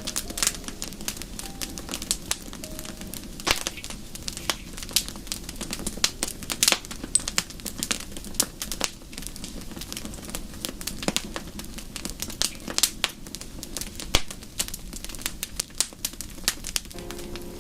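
Wood fire crackling in a fireplace: irregular sharp pops and snaps, several a second, over a steady low background.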